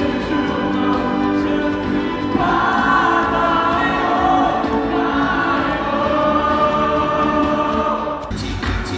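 Music with a choir singing long held chords. A little past eight seconds in it cuts suddenly to different music with a strong bass.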